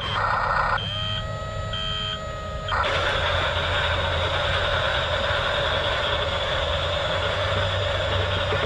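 Toy RC bulldozer's electronic sound effects: short high beeps about once a second and a held electronic tone, then from about three seconds in a steady mechanical running sound as the dozer drives, over a constant low motor hum.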